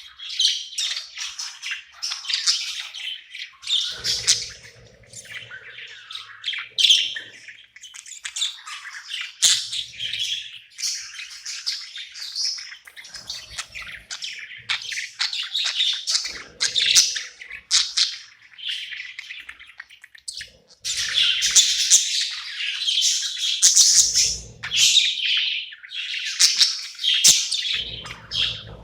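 Pet budgerigar chirping and warbling in a fast, continuous stream of high chirps and squawky notes, growing louder about two thirds of the way through.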